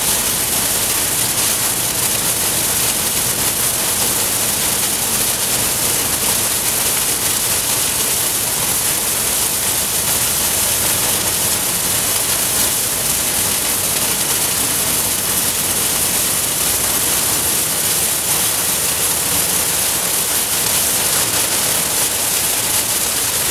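Scrap-metal shredding plant running: a loud, steady hiss with no separate bangs or clanks.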